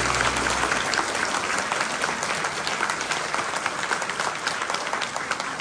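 Audience applauding in a hall, the clapping slowly fading; the last sustained note of the song's backing music dies away under a second in.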